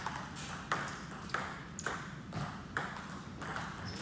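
Table tennis ball being hit back and forth, clicking off paddles and the tabletop in a steady rally of about two hits a second.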